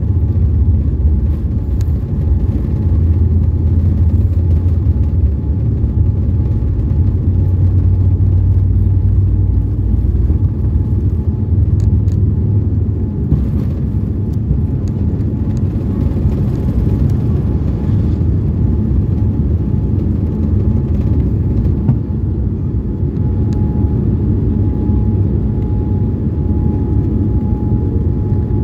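Cabin noise of a Boeing 787-9 taking off, heard over the wing: the GEnx engines at takeoff thrust with a heavy low rumble from the wheels on the runway. The rumble eases about halfway through as the airliner leaves the ground and climbs.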